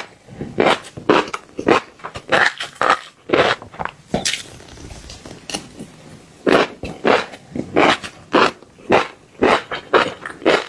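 Crisp, crunchy chewing of fish roe: repeated short, sharp crunches, about two a second, with a quieter pause in the middle before the crunching picks up again.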